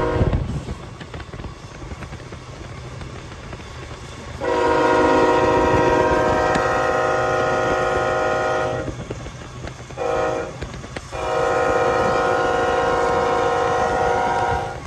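Locomotive air horn sounding a multi-note chord: the tail of one blast, then a long blast, a short one and a long one, the grade-crossing warning pattern, over the low rumble of the passing train.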